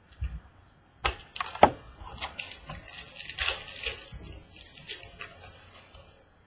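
Trading cards and their packaging being handled: two sharp clicks about a second in, then a few seconds of rapid crinkling, rustling and small clicks that die away near the end.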